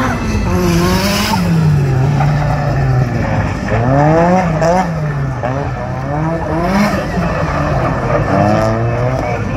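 Drift car's engine revving hard, its pitch rising and falling again and again as the driver works the throttle through a slide, with tyres squealing on the tarmac.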